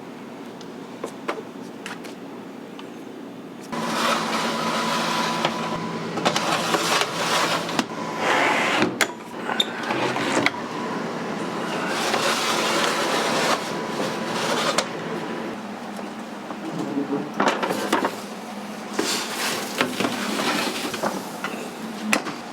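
Burger-kitchen cooking sounds: a steady machine hum under hissing and scattered clicks and clatter of utensils. The hissing gets much louder about four seconds in and comes and goes after that.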